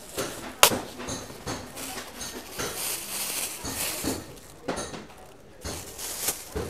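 Thin plastic produce bag being rubbed and pulled open by hand, rustling and crinkling in quick irregular crackles, with one sharp click about half a second in.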